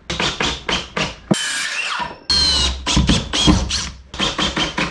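Power drill-driver driving screws into wood: two short runs of the motor with a whine that drops in pitch under load, among a string of sharp clicks.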